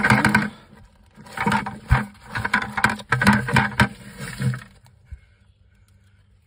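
Rustling and scraping against a plastic 5-gallon bucket holding worms, dirt and dead leaves, in several bursts of handling noise with crackling clicks. It dies down about five seconds in.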